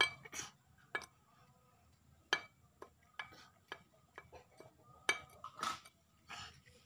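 Young squirrel gnawing and nibbling fresh coconut meat in a half coconut shell: irregular small sharp clicks and scrapes, with a few brief rustles.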